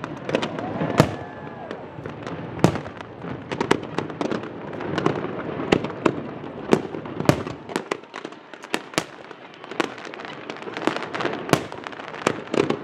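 Fireworks display: an irregular run of sharp bangs, one or two a second, over continuous crackling from the bursting shells.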